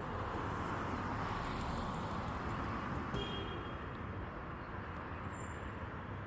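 Steady rushing background noise, a little louder in the first half and easing off after about three seconds.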